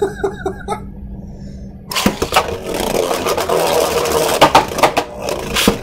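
Brief laughter, then about two seconds in Beyblade Burst spinning tops hit the plastic stadium and spin, with a continuous scraping whir and many sharp clacks as they strike each other and the stadium wall.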